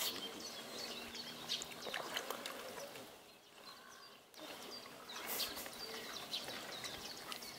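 Small birds chirping in many short calls over a steady outdoor background hiss, quieter for about a second midway.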